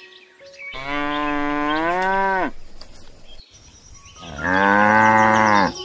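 Cow mooing twice, two long calls each dropping in pitch as it ends, the second louder.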